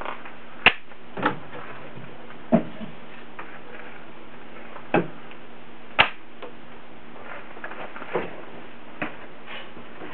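Wooden knocks and clacks, about seven spread irregularly, as slatted wooden press racks and a wooden frame are set down and stacked on the fruit press; the sharpest come near the start and about six seconds in. A faint steady hum runs underneath.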